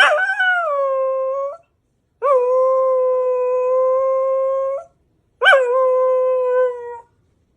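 A dog howling: three long, steady howls of one to three seconds each, each opening with a short rising break in pitch.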